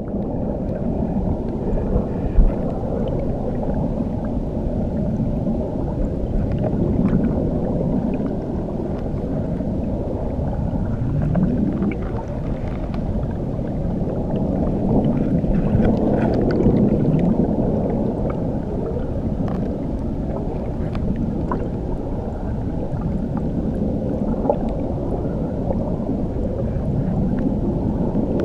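Water churning under a waterfall, recorded underwater: a steady, muffled rush with slow rising and falling gurgling swoops.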